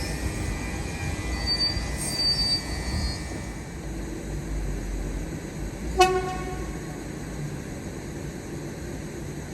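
Train running with a steady low rumble and a faint high wheel squeal about two seconds in. A single short horn toot sounds about six seconds in.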